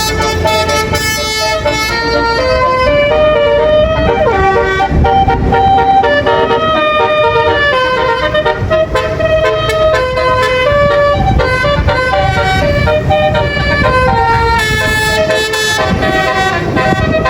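A bus's basuri horn (a multi-note 'telolet' horn) playing a tune of held notes that step from pitch to pitch, over the rumble of the moving bus.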